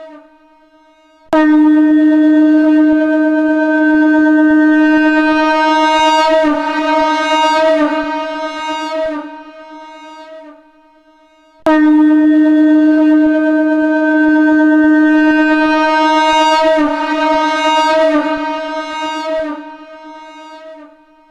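Shankh (conch shell trumpet) sound pitched at D#, played from a sampler pad: two long blasts. Each starts abruptly, the first about a second in and the second near halfway. Each holds for about eight seconds, wavers in the middle, then fades away.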